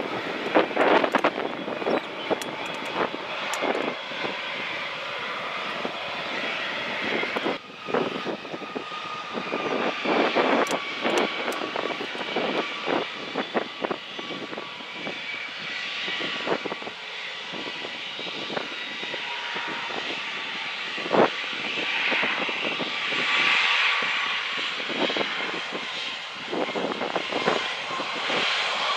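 Airbus A321 jet engines running with a steady whine at low power, overlaid by gusting wind buffeting the microphone. Near the end the engine whine begins to rise in pitch as the engines spool up.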